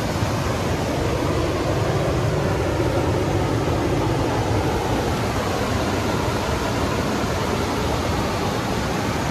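Steady rush of a waterfall, an even, unbroken noise of falling water.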